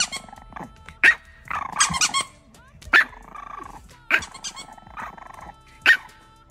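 French bulldog puppy barking: about six short, sharp yaps with longer drawn-out vocal sounds between them.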